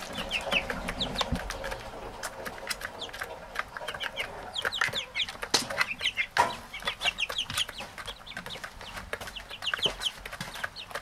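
A flock of half-grown chickens cheeping and clucking, with many short high calls overlapping one another. Scattered sharp clicks and taps sound among the calls.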